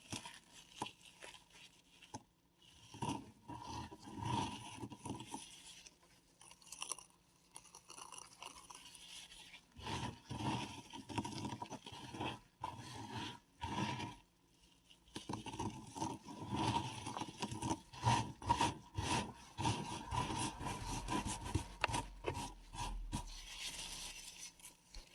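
Paradichlorobenzene mothballs being crushed and ground between bare hands: gritty crunching and scraping of the crumbling mothball and its powder, in several bursts with short pauses between.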